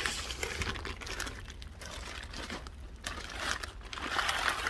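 Packaging rustling and crinkling as a boxed flat-pack table is unpacked, in irregular bursts that grow louder near the end.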